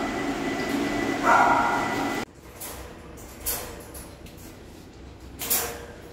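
A grooming dryer blowing steadily while a dog barks over it, cut off abruptly about two seconds in. After that only quiet room sound with two brief knocks.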